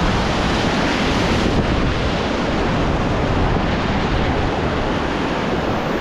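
Rushing whitewater river rapids churning steadily around an inflatable raft, with wind buffeting the microphone.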